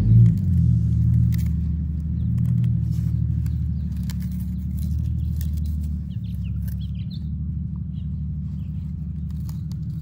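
A small dog growling low and continuously over a beetroot it is nosing and mouthing, the growl swelling with each breath in the first few seconds and then settling. Faint rustling clicks from the leaves come through, and a few faint bird chirps about seven seconds in.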